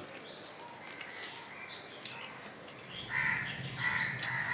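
Crows cawing, a run of repeated harsh caws starting about three seconds in.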